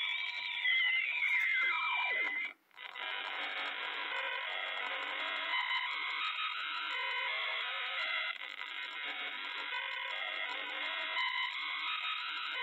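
Harsh synthesized bytebeat tones played through a Lenovo laptop's speakers: a whistling tone glides up and back down, cuts out briefly about two and a half seconds in, then gives way to a dense, raspy buzzing pattern.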